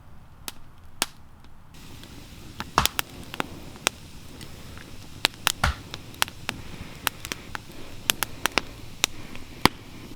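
Wood campfire crackling: irregular sharp pops and snaps over a low hiss of burning.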